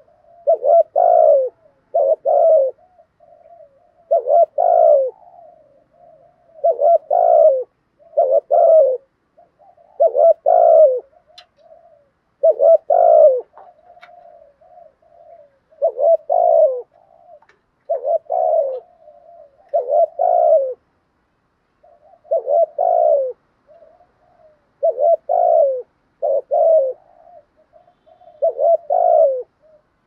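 Spotted dove giving its urgent 'thúc gù' display coo: pairs of loud coos repeating about every two seconds, with soft low notes between them. Keepers use this call to stir other spotted doves into cooing.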